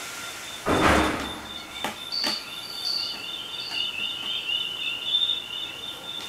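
A wooden cajon struck once with a thump about a second in, then tapped lightly twice, while the player waits to start. Faint high chirping and a thin steady high tone run through the rest.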